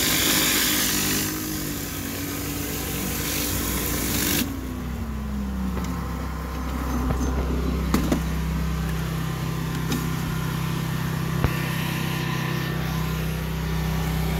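A 4,000 PSI hot-water pressure washer driving a rotary surface cleaner over concrete: a loud spray hiss over a steady engine hum. About four seconds in the spray cuts off abruptly and the engine note falls, settling into a steady lower hum, with a few light clicks later on.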